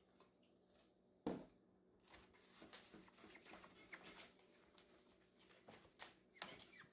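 A cloth damp with rubbing alcohol being rubbed over a glass pane: a faint, uneven rubbing with small clicks, starting about two seconds in. Before it comes a single sharp knock about a second in, the loudest sound, with another lighter knock near the end.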